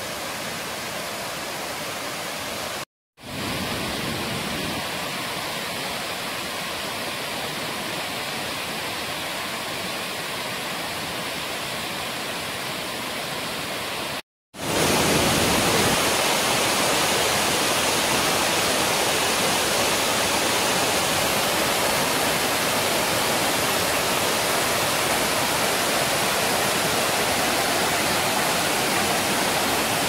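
Steady rush of a 21-metre rainforest waterfall running full in the rainy season. The sound cuts out twice for a moment, about three seconds in and near the middle, and is louder after the second break.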